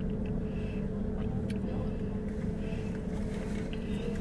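Steady low hum of an idling car, heard from inside the cabin, with a few faint sips through a plastic straw.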